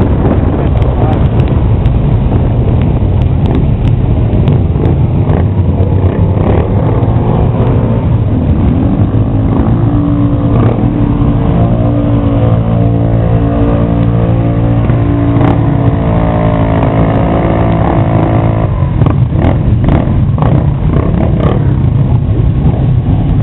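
Motorcycle engines running in a slow group ride, heard from a bike within the pack, with the nearest engine holding a steady pitch through the middle. Near the end comes a string of quick revs.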